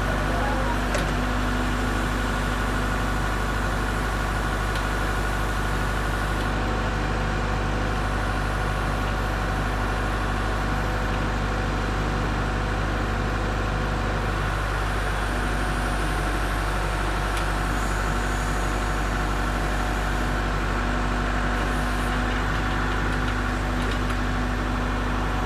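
Case Super L backhoe loader's diesel engine running steadily at an even, unchanging speed.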